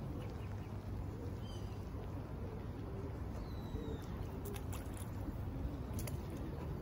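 Outdoor lakeside ambience: a steady low rumble with no breaks, over which a few faint, short high bird calls drop in pitch, about twice in the first half.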